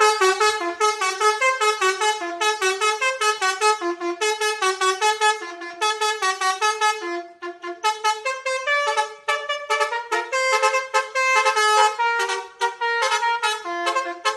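Basuri telolet musical horn playing a quick tune of short, bright horn notes in a steady rhythm. The melody dips briefly about seven seconds in, then carries on.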